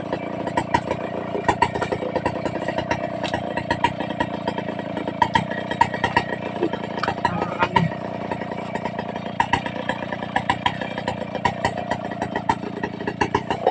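Stihl two-stroke chainsaw engine running at low speed, near idle, steady, with many irregular light ticks and clatter over it.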